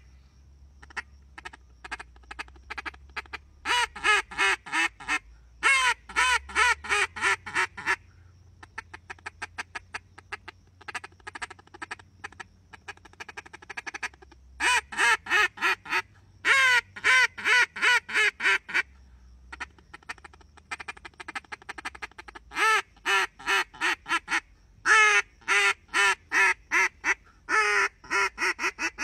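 Reyoka duck call blown by mouth in runs of quick, repeated quacks, several notes a second, each run a second or two long with short breaks between. Loud runs of quacks alternate with a softer, faster chatter in the middle of the stretch.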